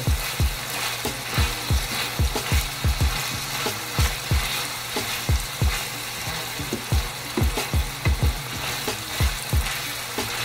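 Diced carrots, potato and bell peppers sizzling in oil in a frying pan, stirred with a wooden spatula that scrapes and knocks against the pan about two to three times a second.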